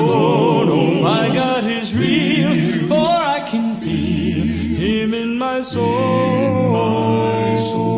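A cappella gospel quartet singing in close harmony without instruments, the voices holding long chords with vibrato and moving to a new chord a few times.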